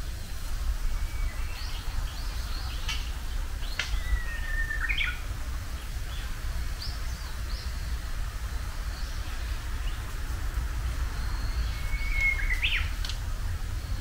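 Japanese bush warbler (uguisu) singing its hō-hokekyo song twice: each a long held whistle that ends in a quick rising flourish. Short high chirps come between the songs, over a steady low rumble of wind on the microphone.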